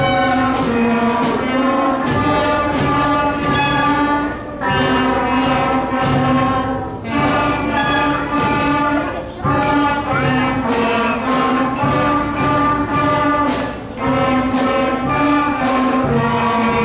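A student wind band of flutes and clarinets playing a slow piece in sustained, held notes, phrase after phrase with brief breaks between.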